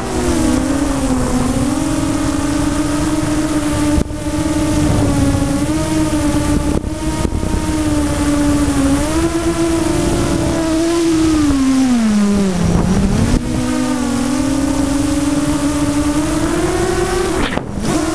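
Electric motors and propellers of a radio-controlled multirotor drone in flight, heard from its onboard camera: a steady whine that wavers with the throttle, dips low about twelve seconds in and climbs back. Wind rush runs underneath.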